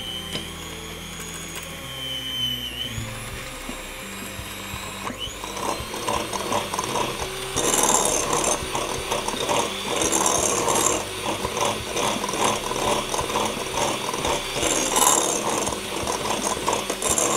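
Electric hand mixer running, its twin beaters working a stiff mix of butter, brown sugar and spices in a glass bowl. The motor's whine shifts pitch about three seconds in. From about five seconds in a fast, louder rattle of the beaters against the mix and the glass takes over.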